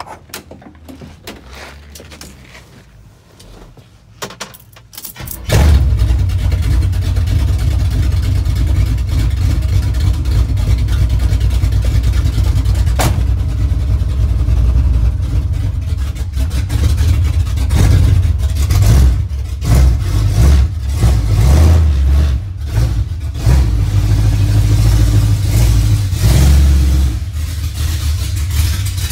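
The door handle clicks and the driver climbs in. About five seconds in, the 1977 Chevy C10's small-block V8 starts and runs loud, its revs rising and falling. The exhaust is loud enough that the owner wants it quieted down.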